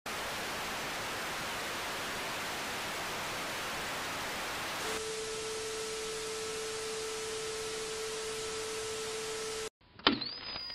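Analogue TV static hiss, then a steady single tone over the hiss from about halfway, while the picture shows colour bars. Both cut off suddenly near the end, followed by a sharp hit and a quick rising electronic sweep to a high held tone.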